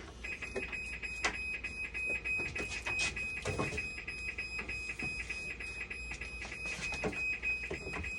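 Dialysis machine's electronic alarm buzzer sounding one continuous high-pitched beep tone that starts just after the beginning, with scattered clicks and knocks of handling over it.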